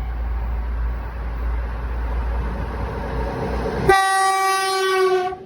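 ED4M electric multiple unit running with a steady low rumble, then sounding its horn: one loud, steady horn blast of about a second and a half starting near the end, its pitch dipping slightly just before it stops.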